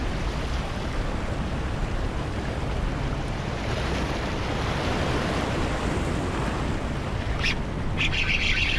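Waves washing and breaking over the boulders of a rock jetty, a steady rushing surf, with wind buffeting the microphone. Near the end a higher-pitched rasping sound comes in briefly.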